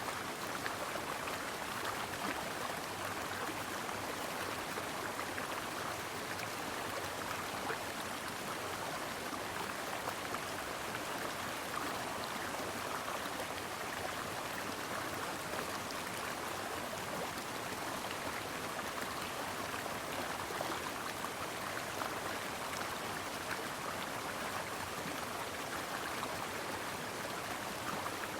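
Brook water running and babbling over stones. The sound is steady and even, with small splashes scattered through it.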